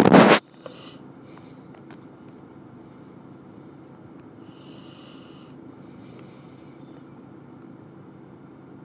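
A person breathing close to the microphone: a sharp, noisy sniff or snort at the start, then slow breaths, the clearest one about five seconds in. Under them runs a steady low hum.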